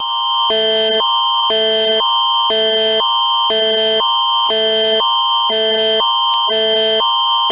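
Canadian Alerting Attention Signal (Alert Ready), the tone that heads an emergency alert: two electronic chords, a higher pair and a lower pair, alternating every half second over a steady high tone.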